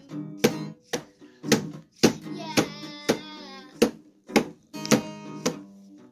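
Acoustic guitar strummed in a steady rhythm, about two chord strums a second, each strum ringing on briefly. A child's voice sings wordlessly over it for a moment in the middle.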